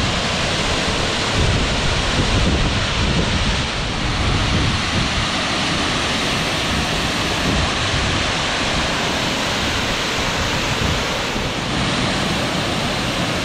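Virje waterfall: a steady, even rush of falling water.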